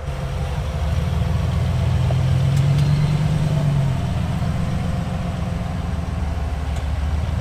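Rock crawler buggy's engine running at low revs under load as it crawls up a rock ledge, a steady low rumble that swells a little between about two and four seconds in, then eases back.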